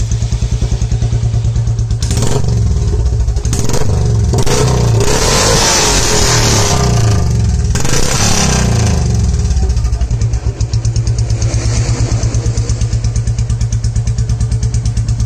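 Royal Enfield Classic 350 Reborn's single-cylinder engine running through a Long Punjab aftermarket silencer, very loud, with a low pulsing beat at idle. The throttle is blipped several times through the first half before the engine settles back to an even idle. The owner puts the loudness down to the aftermarket catalytic converter fitted with it.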